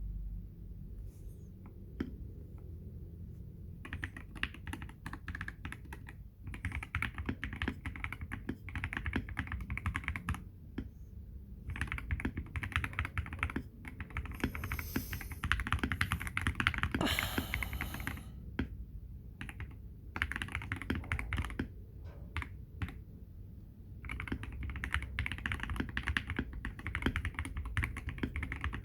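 Typing on a Feker IK75 V2 gasket-mount mechanical keyboard fitted with lubed Everglide Aqua King linear switches, a polycarbonate plate and PBT XDA keycaps. Fast runs of keystrokes come in bursts of a few seconds, with short pauses between them.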